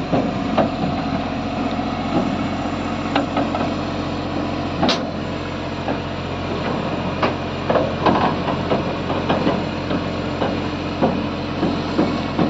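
Crawler crane's diesel engine running steadily, with scattered short knocks and one sharp clank about five seconds in.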